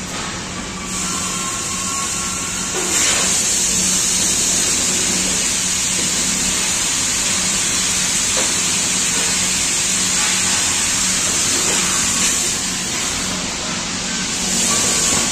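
Steady factory-floor machinery noise: a loud, even hiss with a low steady hum underneath.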